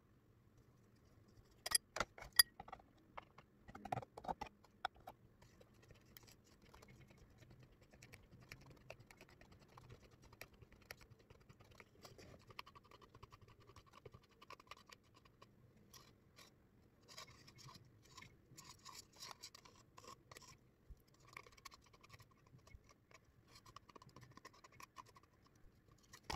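A few sharp knocks about two seconds in, then a metal spoon scraping and tapping inside a plastic cup set as a funnel on a glass bottle, working thick sandwich spread down into the bottle.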